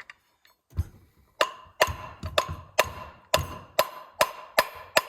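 Hammer striking a puller set in a stuck Polaris Ranger clutch, a steady run of sharp metallic blows about two a second, each with a short ring, to work the stuck top part loose.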